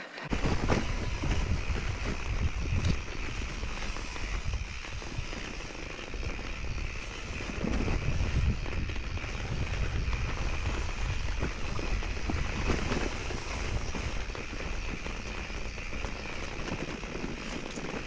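A mountain bike rolling along a dirt trail: tyre and trail rumble with scattered clicks and rattles, under wind buffeting the microphone.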